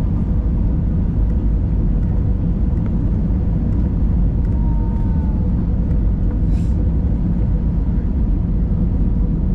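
Airliner cabin noise: a steady low rumble of the engines and airflow, with a faint steady hum running through it.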